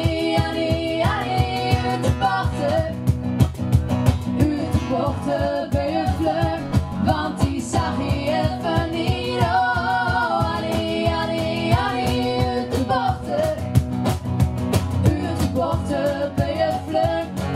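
Live pop song: women's voices singing over strummed acoustic guitar and a cajon beat.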